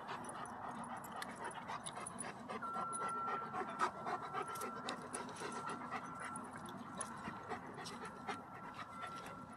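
German shepherd panting close by, a quick continuous run of breaths with its mouth open. A faint steady high tone sounds in the background from a couple of seconds in.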